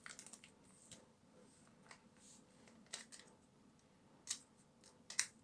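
Faint scattered clicks and taps of small parts being handled, with a few sharper clicks spread through.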